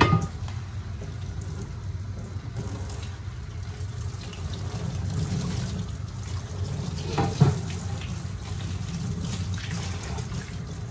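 Faucet water running into a utility sink while cast iron cookware is rinsed under it, with a sharp knock right at the start and two more about seven seconds in.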